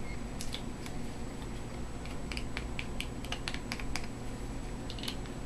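Irregular light clicks and crinkles of a soft metal paint tube being folded over and crimped shut with canvas pliers.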